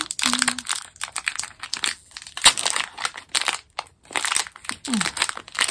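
Packaging crinkling and tearing as a mini-figure pack is opened by hand, with one sharp click about two and a half seconds in.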